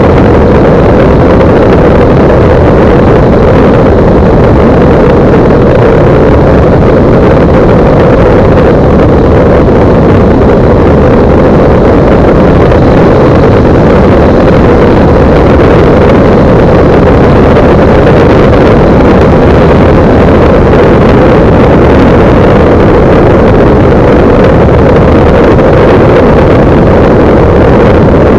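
Single-engine light aircraft's propeller and engine running in flight, mixed with heavy wind rush on the microphone of a camera mounted outside the plane. The sound is loud and steady, with no change in pitch.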